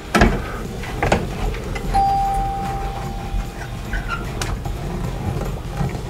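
A screwdriver working the screws of a wall-mounted door chime, with a few sharp metal clicks and scrapes. About two seconds in, a single clear tone rings out and fades away over nearly two seconds.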